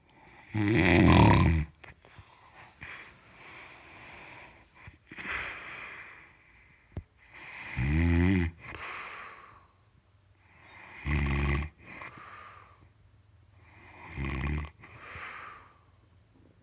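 Loud snoring: four deep, rattling snores about three seconds apart, the first the loudest, with softer breathy sounds between them.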